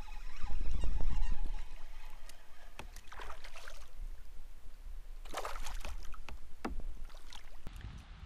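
Handling sounds from a kayak as a small smallmouth bass is played and brought alongside. A low rumble runs for the first couple of seconds, with scattered clicks and knocks of tackle against the hull throughout. Two short rushing bursts come about three and five seconds in.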